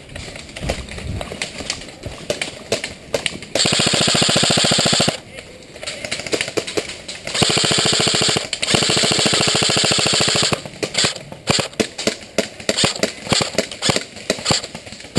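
Airsoft electric rifles firing: scattered single shots, then three long full-auto bursts of rapid mechanical rattling, each one to two seconds long, then more scattered single shots.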